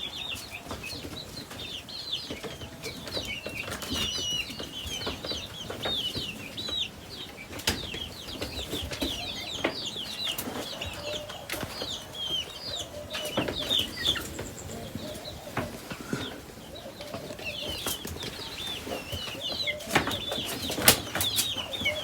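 A flock of young chickens peeping: many short, high chirps overlapping, with scattered sharp knocks and some wing flapping among them.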